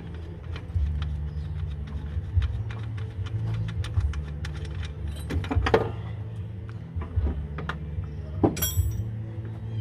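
Hand tools clicking and clinking on metal as the nuts of the front strut's top mount are worked loose, with a louder ringing metal clink near the end. A steady low hum runs underneath.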